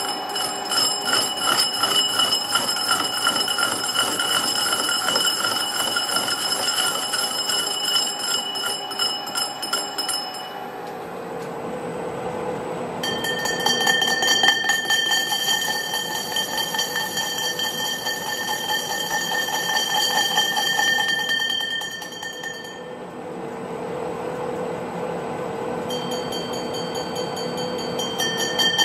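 Metal lathe turning a Mercedes W124 'Gullideckel' alloy wheel centre. During cutting passes the work rings with several steady high-pitched tones over a fine rapid ticking. The ringing stops about a third of the way in, returns for a long middle stretch, and starts again near the end, with the lathe running more quietly in between.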